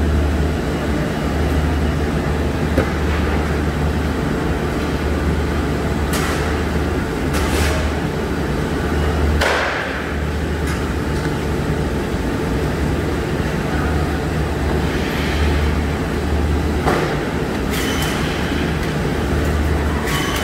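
Multivac T600 tray sealer running with a steady, pulsing low hum, with a few brief hisses scattered through.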